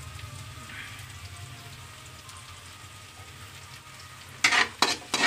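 Sliced onions and garlic sizzling gently in oil in a wok. About four seconds in, a spatula starts stirring them, with a few loud scraping strokes against the pan.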